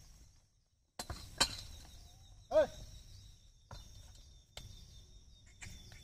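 A ploughman's short shouted call to his pair of bullocks, about two and a half seconds in, the loudest sound here. Around it are scattered clicks and knocks from the bullocks' hooves and the wooden plough working the tilled soil, over a thin steady high tone.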